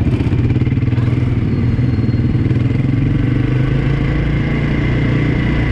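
ATV (quad bike) engine running steadily while riding, its pitch holding nearly level.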